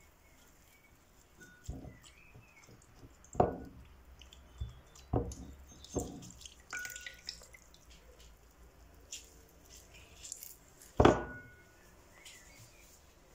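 Fingers tearing common dock leaves over a bowl of water, with drips and small bits of leaf falling into it: about five separate small plops, the loudest near the end.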